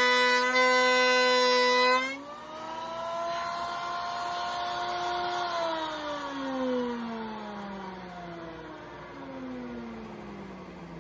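Router on a router table, fitted with a finger-joint bit, running loud and steady as it cuts through the end of a scrap board, with the dust collector running. About two seconds in the level drops sharply, and from about halfway through the motors wind down, their whine falling steadily in pitch.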